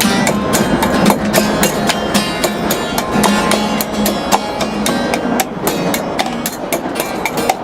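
Music: plucked acoustic guitar with a quick, steady percussive beat of about four strokes a second.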